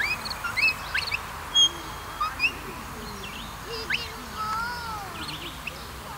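Wild birds singing around the field: many short, quick rising chirps and whistles, with a longer arched, falling whistle about four seconds in.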